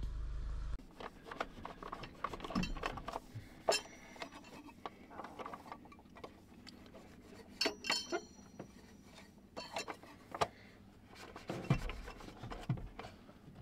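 Handling noises on a wooden OSB tabletop: irregular rubbing and scraping with scattered clicks and light knocks, a few sharper ones standing out. A steady low outdoor rumble cuts off about a second in.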